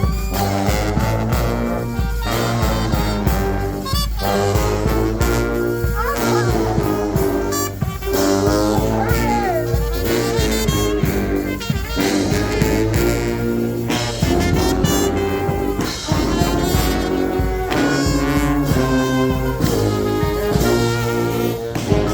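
Brass band playing a lively tune with a steady beat, horns in full harmony, with a couple of sliding notes about six and nine seconds in.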